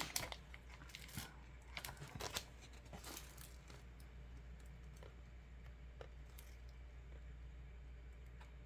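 Packaging being handled and opened: a few seconds of crinkling, crackling and tearing, with sharp clicks, that dies away about three and a half seconds in to a faint steady hum.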